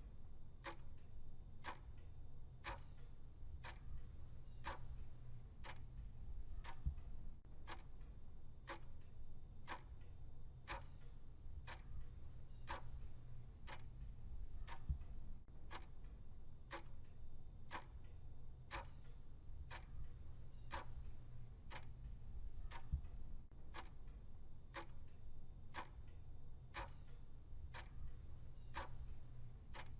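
Clock ticking steadily, with even, regular ticks over a faint low hum.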